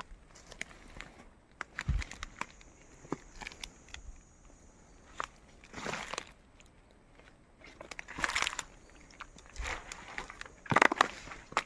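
Irregular rustling and crackling, like footsteps through dry leaves and twigs on a forest floor, with a few louder crunches about 6, 8 and 11 seconds in.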